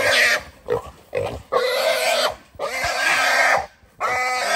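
Wild hog squealing in distress while a catch dog and a man hold it down: about six loud, shrill squeals in a row, each cut off by a short breath.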